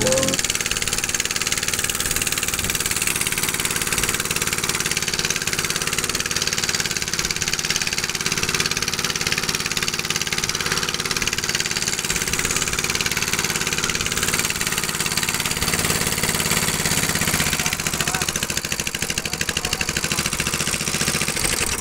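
Engine of a small wooden fishing boat running steadily under way, with water rushing and splashing along the hull and wind noise. The engine eases off about three-quarters of the way through as the boat nears a fishing platform.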